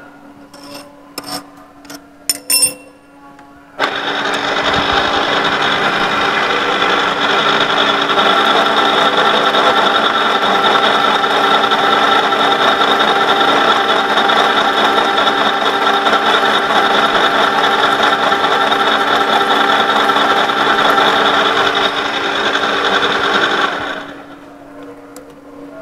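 Milling machine spindle running an 18 mm four-flute HSS end mill, plunge-cutting straight down into ST41 steel. A steady hum with a few light clicks, then about four seconds in a loud, continuous cutting noise as the tool bites into the steel, holding for about twenty seconds and stopping abruptly near the end, leaving the spindle hum.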